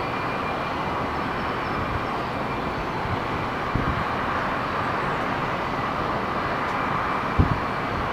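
Boeing 757-200 jet engines at taxi power: a steady rushing noise with a faint high whine over it, and two soft low bumps, about four and seven seconds in.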